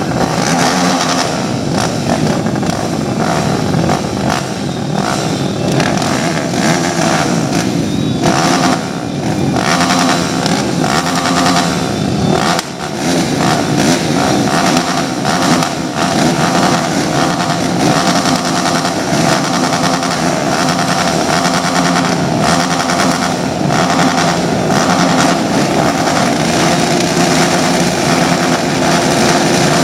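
ATV engine running loudly and continuously, its pitch shifting up and down a little with the throttle.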